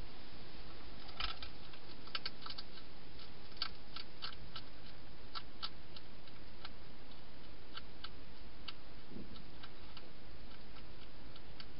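A wild hedgehog eating inside a plastic feeding box: irregular crisp chewing clicks, at times several in quick succession, over a steady hiss.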